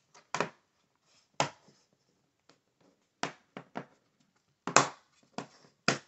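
Plastic clips of a Lenovo IdeaPad 1i laptop's bottom cover snapping into place as the cover is pressed down around its edges: about eight sharp clicks at uneven intervals, the loudest a little past the middle.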